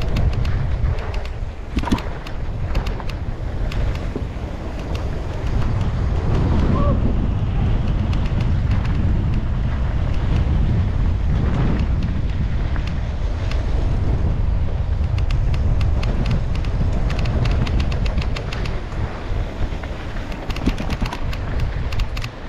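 Wind buffeting the microphone of a camera on a moving mountain bike, with the tyres rolling over a rough dirt trail and frequent clicks and rattles from the bike over the bumps, thicker in the second half.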